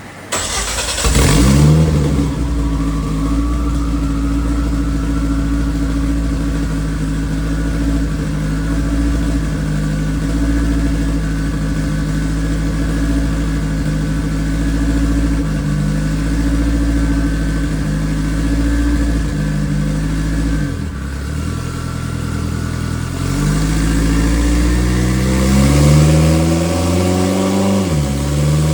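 Boosted race car engine running on a chassis dyno. It holds a steady speed for about twenty seconds, drops off briefly, then revs up with a rising pitch, with a short dip near the end.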